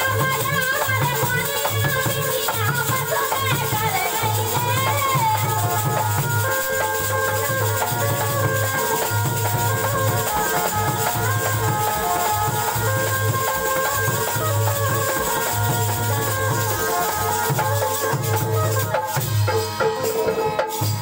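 Live Indian folk ensemble: a woman sings with harmonium, dholak and a hand shaker. About five seconds in the voice drops out, and the harmonium carries an instrumental passage over a steady dholak beat and shaker rattle.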